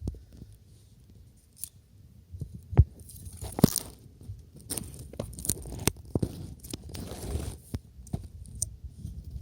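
Wood bonfire crackling, with scattered sharp pops; the two loudest come about three and three and a half seconds in.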